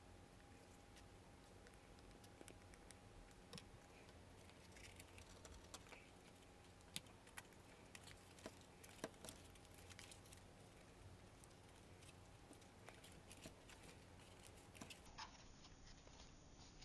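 Faint card pieces being handled and fitted together: scattered light clicks and taps of stiff card over near-silent room tone.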